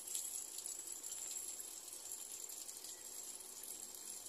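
Water pouring steadily from a Toshiba top-loading washing machine's detergent dispenser into the drum as the machine fills. The machine keeps letting water in without cutting off, a fault the owner suspects is in the water level sensor.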